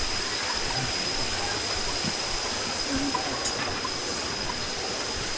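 Steady rush of a waterfall cascading over rocks, with a thin, steady high-pitched whine over it.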